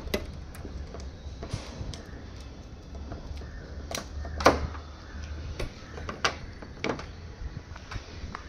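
Cable bicycle lock being handled and fastened: irregular clicks and knocks from the lock's metal clasp and cable, the loudest about halfway through.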